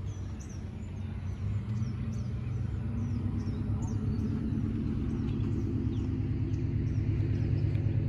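An engine running steadily and slowly growing louder, with a bird chirping in a quick series of short high calls over it.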